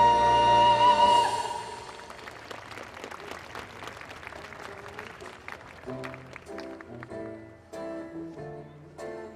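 A held final chord of orchestral show music cuts off about a second in, followed by audience applause. From about six seconds in, an acoustic guitar starts picking out slow single notes.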